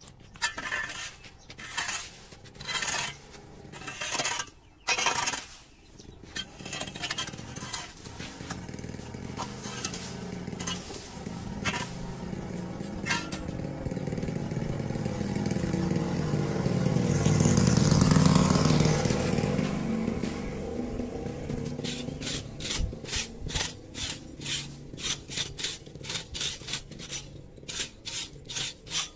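A rake scrapes leaves and grit across concrete pavement in separate strokes. Then a passing vehicle swells and fades, loudest about two-thirds of the way through. Near the end come quick, rapid scraping strokes, about two a second, as a small hand rake clears debris off a metal storm-drain grate.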